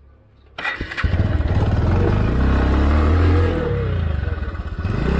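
Motorcycle engine starting about half a second in, then revved, its pitch rising and falling and climbing again near the end.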